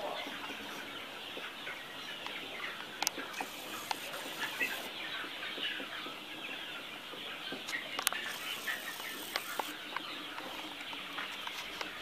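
Many chickens clucking and chattering continuously, with a couple of sharp clicks about three and eight seconds in.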